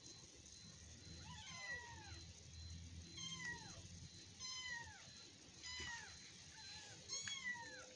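A kitten meowing over and over in short, high calls that each fall in pitch, about one every second or so.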